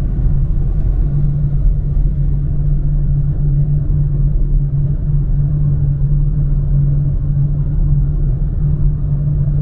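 Car driving on a paved road, heard from inside the cabin: a loud, steady low engine drone and road rumble.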